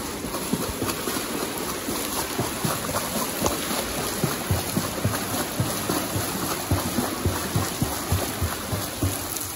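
Swimmer's flutter kick splashing in a pool: the feet beat the surface in a continuous run of short splashes.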